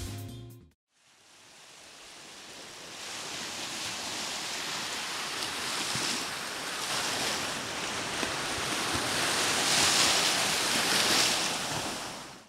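Small sea waves washing up a sandy beach: a steady rushing surf that fades in from silence and swells in repeated rushes, loudest near the end, then cuts off.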